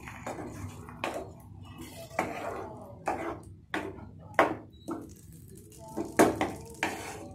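A wooden spatula stirring thick brinjal curry in a non-stick pan, giving a string of separate scrapes and knocks against the pan.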